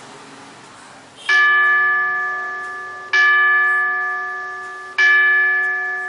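Recorded electronic gong played through the SBELL 8012 school bell timer's audio output: after about a second of faint hiss, three ringing strikes about two seconds apart, each fading away. This is one of the stored school-bell sounds on its SD card, played as a test.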